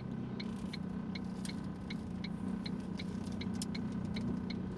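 Car turn-signal or hazard-flasher relay ticking evenly, about two and a half ticks a second, over the steady low hum of the car's cabin.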